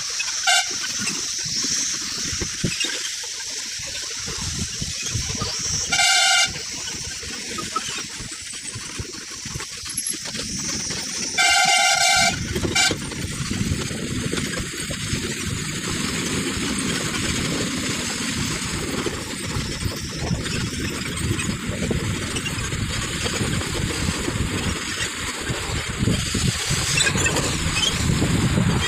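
A vehicle horn beeps several times: a short toot near the start, another about six seconds in, and a longer blast of about a second around twelve seconds, followed by a quick toot. Underneath runs the steady engine and road noise of a vehicle driving on a rough dirt road.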